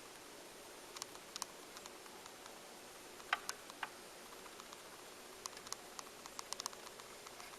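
Faint, irregular light clicks and ticks from the BIC 980 automatic turntable just after the music stops, over a faint steady hiss.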